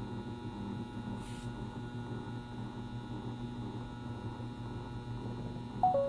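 Steady electrical hum with faint high steady tones above it. Right at the end, a short electronic beep that steps down from a higher note to a lower one.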